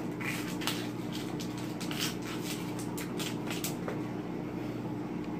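A steady low hum with a few faint, light clicks of something being handled.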